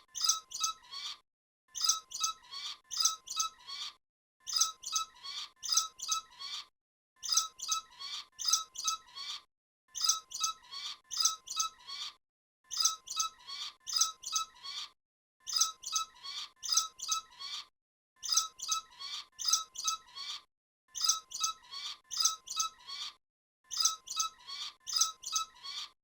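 Bat squeaks: bursts of quick, high-pitched chirps about two seconds long, repeated identically every two and a half seconds or so with silent gaps between, as in a looped sound effect.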